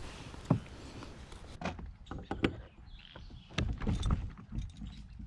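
Handling noises on a plastic fishing kayak: scattered clicks and knocks, with a cluster of low thumps about three and a half seconds in.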